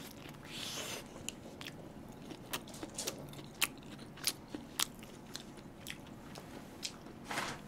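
Close-miked biting and chewing of a toasted bread sandwich: quiet, scattered crunching clicks.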